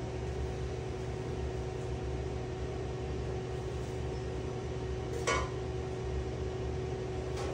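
Steady electrical hum of restaurant kitchen equipment, a low rumble under a constant tone, with one short high squeak about five seconds in.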